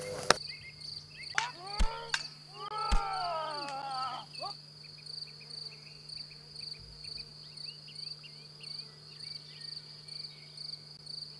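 A cricket chirping: a steady high pulsing trill about three times a second, over a low hum. In the first few seconds there are a few sharp clicks and several brief gliding cries.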